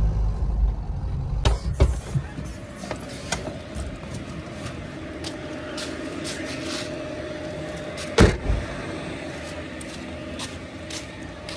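Mahindra Scorpio's engine rumbles and dies away about two seconds in, with a couple of sharp clicks from the door latch as the door opens. About eight seconds in the car door slams shut with one loud bang.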